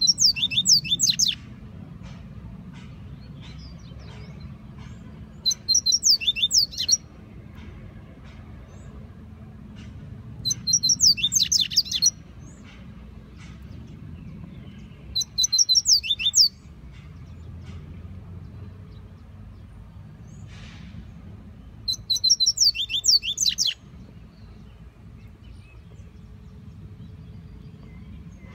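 Double-collared seedeater (coleiro) singing: five short song phrases of quick, high, sweeping notes, each about a second and a half long and roughly five seconds apart, over a low, steady background rumble.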